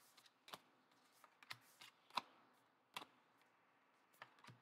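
AFLW TeamCoach trading cards flicked through one at a time in the hand: a string of short, sharp card-on-card clicks and snaps, about six in all, the loudest a little past two seconds in.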